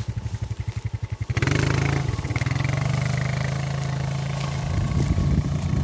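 Quad bike engine idling with an even pulsing beat, then revving up about a second and a half in and running steadily as the quad pulls away towing an old tyre on a chain through bracken.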